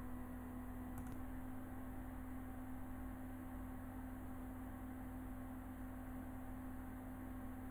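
Steady electrical hum with a faint hiss underneath, one low tone with fainter overtones above it. A single faint click about a second in.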